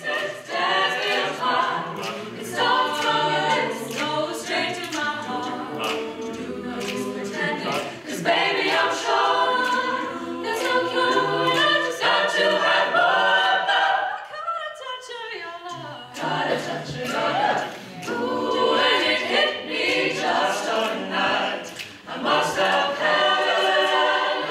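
Mixed-voice a cappella group of men and women singing a pop song in harmony, with no instruments. The sound thins out and drops in level for a couple of seconds a little past halfway, then the full group comes back in.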